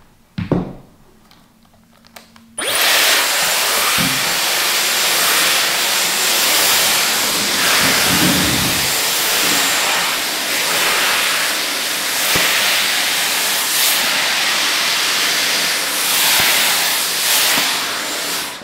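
Dyson Airwrap hair styler blow-drying hair: switched on about two and a half seconds in, it blows with a steady, loud rush of air and motor noise, then cuts off near the end.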